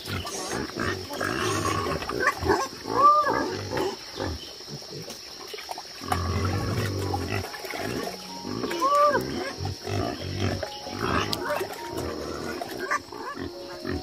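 Pigs grunting in low bursts, with short high squeals of young pigs coming every few seconds.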